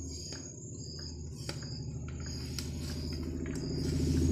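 A cricket chirping in short, evenly spaced pulses, about one and a half a second, over a low rumble that grows louder near the end.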